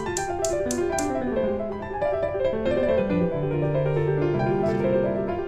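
Background piano music, a gentle melody of held notes, with a few sharp ticks in the first second.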